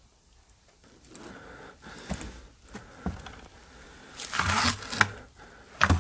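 Scraping and rustling of debris as a glass-fronted picture frame is handled and moved about on a littered wooden floor, with the loudest bursts about four and a half seconds in and again near the end.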